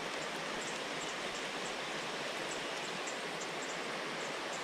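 Steady hiss of rain falling on the lake surface.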